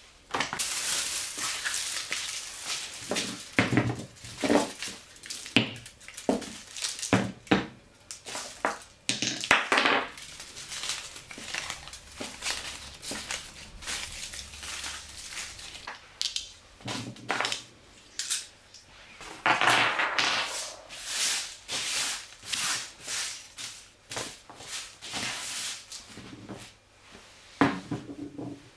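Hands crumpling clear plastic film and foil, and sweeping loose rice grains and scraps across a hard board: irregular crinkling and rustling broken by small clicks and rattles.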